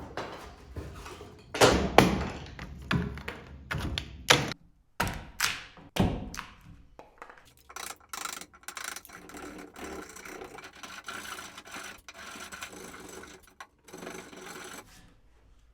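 Hand woodworking on a timber: a series of sharp knocks on wood in the first few seconds, then a long run of quick rasping strokes, as when cutting timber-frame joinery by hand.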